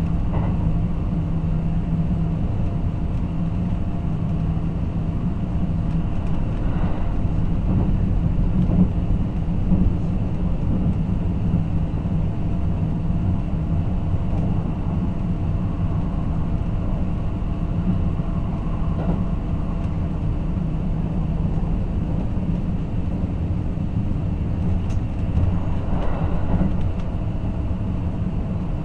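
Kintetsu 23000-series Ise-Shima Liner limited express running, heard from inside the passenger cabin: a steady rumble of wheels and running gear with a faint steady hum.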